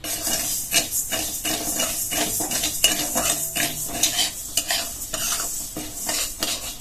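Steel spatula scraping and stirring dry split moong dal around a metal kadai as the lentils dry-roast, the grains rustling and rattling against the pan. Repeated quick scrapes, two or three a second.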